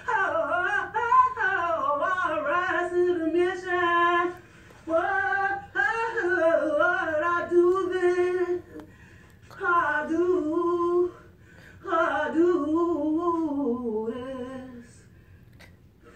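A woman singing unaccompanied in four long phrases with a wavering vibrato and short pauses between them; the last phrase slides down in pitch and trails off near the end.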